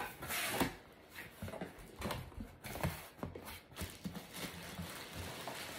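Cardboard shipping box being opened by hand: flaps pulled back, then the plastic wrapping around the bag inside handled, giving a run of irregular crackles, rustles and light knocks.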